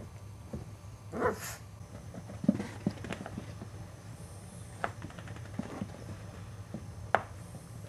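Boxer puppy gives one short, high yelp about a second in, followed by scattered soft knocks and scuffles as the puppies play, over a low steady hum.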